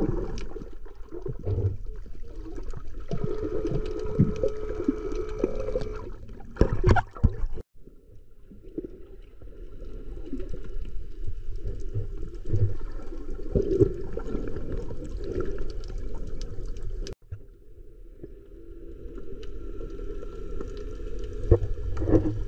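Muffled underwater sound from a camera held below the surface: water sloshing and gurgling, with a few sharp knocks. It cuts off abruptly twice where clips are joined.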